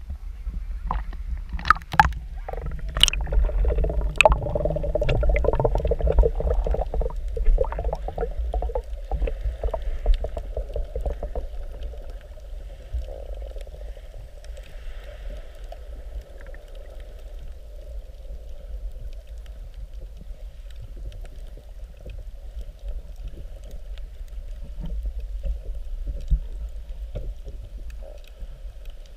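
Water splashing and knocking against an action camera's waterproof housing as it dips under the surface, then the muffled low rumble and gurgle of underwater sound with a faint steady hum.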